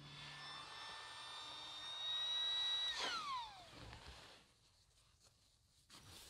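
A small electric motor whining steadily, rising slightly in pitch, then switched off about three seconds in and spinning down with a falling whine.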